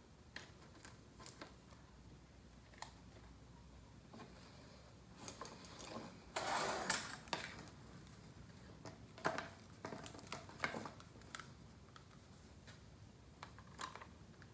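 Scattered clicks and rustles of electrical wires and an extension cord being handled while a blower motor is wired up, with a longer, louder rustle about six seconds in. The motor is not running.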